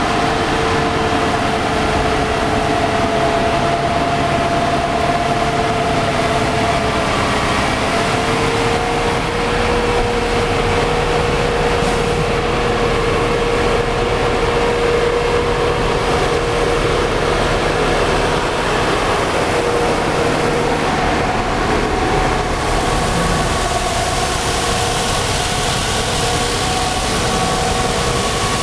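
Compact tractor engine running steadily under load while the tractor clears snow with a front-mounted blade and then a front rotary broom. There is a constant hum with a steady whine through it.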